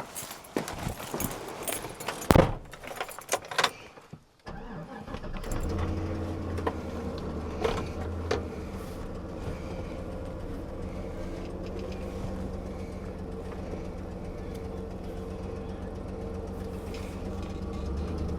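Keys jangling and clicking, then about four seconds in a pickup truck's gasoline engine starts and settles into a steady idle.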